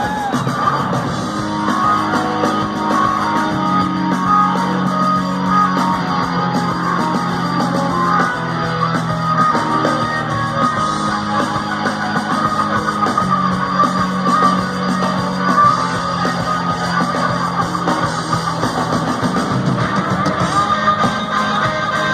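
Live rock band playing an instrumental passage: distorted electric guitar over held bass notes that change every couple of seconds, with drums, and no vocals.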